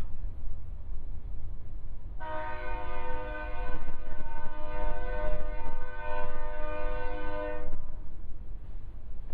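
Union Pacific diesel locomotive's multi-chime air horn sounding one long, steady chord blast of about five and a half seconds, starting about two seconds in. Wind buffets the microphone throughout with a low rumble.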